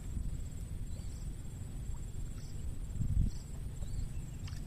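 Outdoor ambience: a steady low rumble of wind on the microphone, with faint short high chirps from a small animal about once a second.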